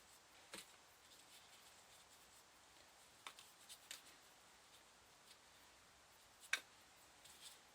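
Near silence broken by a few short clicks of metal parts and a screwdriver being handled, with one sharper click about six and a half seconds in.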